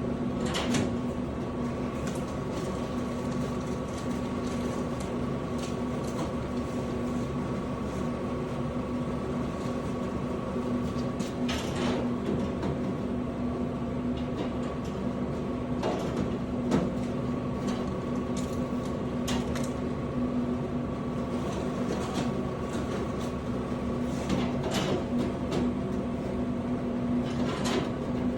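Steady electric hum of a refrigerated drink vending machine, with scattered clicks and knocks as cans are handled during restocking.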